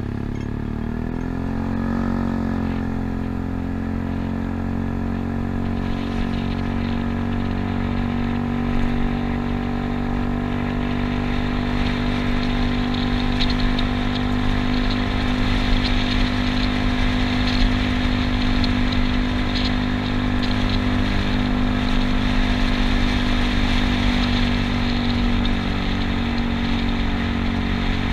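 Yamaha Cygnus scooter's single-cylinder engine pulling away from a standstill, its note rising over the first couple of seconds and then holding steady at cruising speed. Wind and road noise build as it picks up speed.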